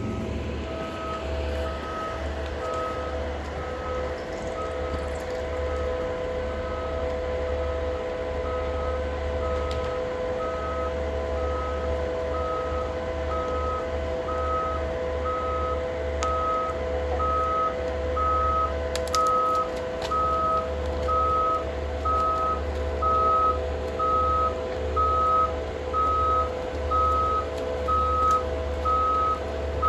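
Loaded forestry forwarder on bogie tracks backing up, its reverse alarm giving regular beeps about once a second, growing louder near the end, over the steady run of its diesel engine.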